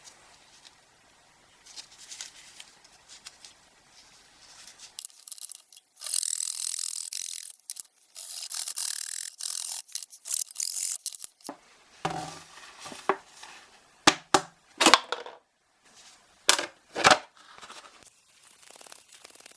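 Scraping and rubbing from hand work on wood: a few seconds of dense rasping strokes, then a handful of short, sharp separate scrapes.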